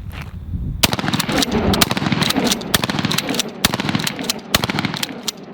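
Blackwater Sentry 12 12-gauge pump-action shotgun fired in a fast string as a magazine is run. The pump is worked between the shots, which echo, from about a second in until near the end.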